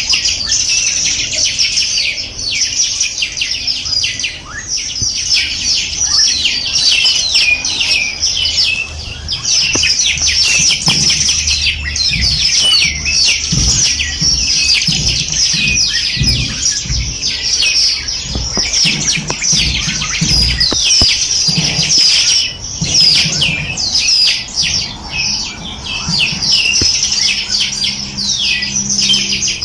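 Dense chorus of small songbirds, many rapid high chirps and quick downward-sweeping trills overlapping without a break.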